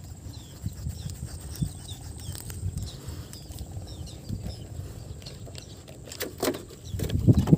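Open-air ambience with a low rumble and faint, repeated high chirps. A few louder knocks and rustles come near the end, like gear being handled.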